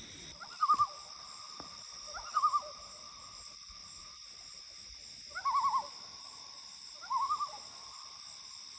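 Common loons giving tremolo calls across the water: four short, quavering calls a couple of seconds apart, the birds calling to one another as groups meet. A steady chorus of crickets runs underneath.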